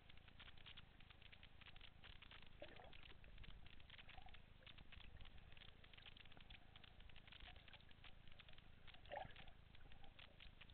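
Faint underwater ambience: a dense, irregular crackle of tiny clicks, with a few brief low blips about three, four and nine seconds in.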